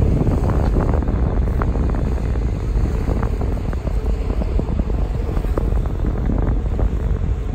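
Steady low mechanical rumble, with faint short knocks scattered through it.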